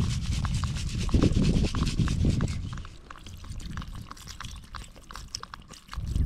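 Water poured from a plastic bottle into a pot of crabs on a camp stove, splashing and trickling over the shells. A low rumble fills the first half and then drops away, leaving the lighter trickle.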